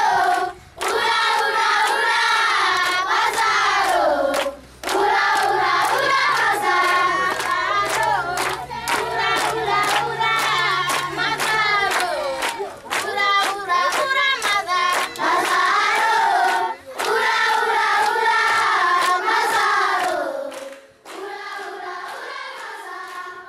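A group of voices singing together in chorus, with hand claps mixed in. Near the end the singing stops and the sound drops to a fainter level.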